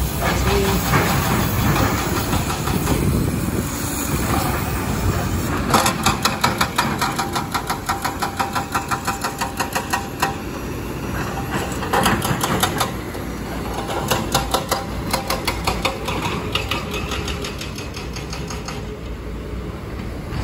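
Road-works noise: a steady rumble of heavy machinery and passing traffic, broken by runs of rhythmic metallic clacking, about five a second, starting about six seconds in and coming back twice later.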